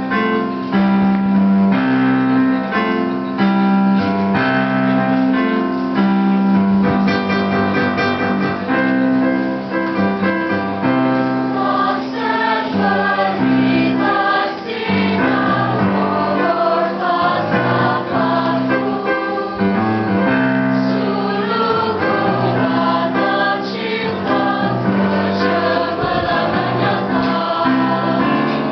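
School choir singing a patriotic song in parts, over held instrumental accompaniment.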